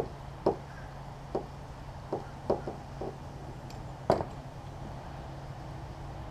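Screwdriver and wrench clicking and knocking against a small bolt and cap nut as it is tightened onto a plastic rudder foot pedal: about eight sharp, irregular clicks, the loudest about four seconds in.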